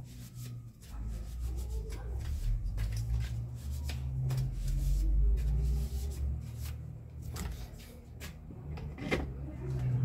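Plastic table-fan blade being handled and cleaned of dust by hand, with scattered light knocks and clicks, the sharpest about a second before the end, over a steady low hum.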